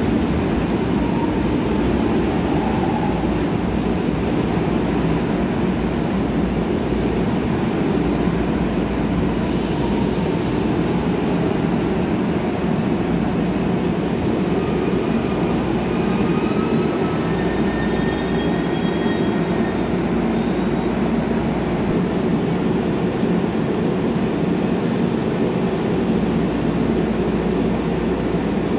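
Korail Line 1 electric commuter train pulling into the platform and slowing to a stop: a steady, continuous rumble of wheels and running gear, with a few faint high-pitched squeals partway through.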